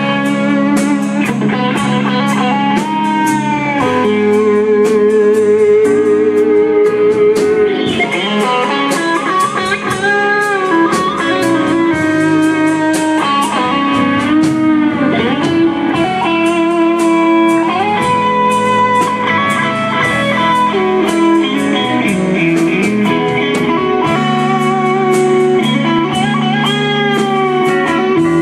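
Instrumental break of a slow soul ballad played by a band: an electric guitar lead with bent, wavering notes over bass and a steady drum beat.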